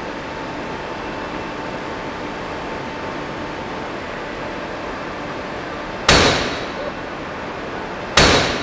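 Dyneema rope strop snapping under tension in a hydraulic tensile test machine: two sharp loud bangs about two seconds apart as it breaks at roughly 9.8 tonnes. Under them runs the steady hum of the test machine's hydraulic pump.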